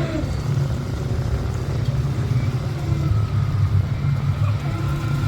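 ATV engine running steadily nearby, a continuous low rumble.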